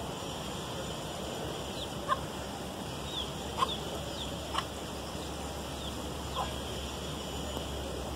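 Chickens making a handful of short clucks and chirps, some falling quickly in pitch, scattered over steady background noise.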